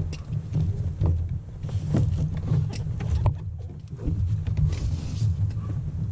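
Knocks and rubbing from an inflatable dinghy's hull being hauled up onto a sailboat's bow, over a low, uneven rumble.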